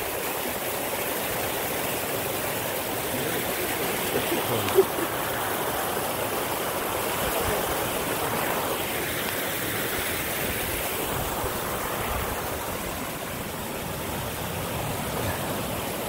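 Fast-flowing muddy floodwater rushing along a stone-walled channel, a steady rushing noise throughout. There is one brief knock about five seconds in.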